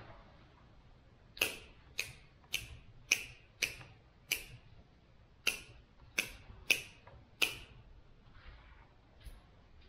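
Hand pruning shears snipping the lower branches off the bases of spruce seedlings: about ten sharp snips, roughly two a second, with a short pause midway.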